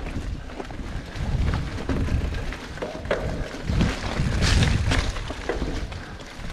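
Mountain bike riding down a dirt trail: wind rumbling on the camera microphone, with tyres crunching and the bike rattling over rough ground. There is a louder, harsher stretch of noise about four and a half seconds in.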